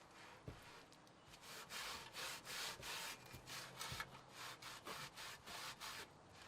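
Rhythmic scrubbing strokes on a rusty metal bird feeder, about three a second, starting about a second and a half in, as the rust is worked at with Iron Out solution.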